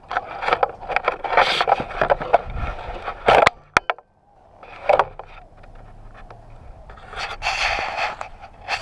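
Close handling noise at the camera: scraping and rubbing with many sharp clicks and knocks as the camera and the quadcopter it rides on are handled and picked up. There is a brief hush about four seconds in, and louder scraping near the end.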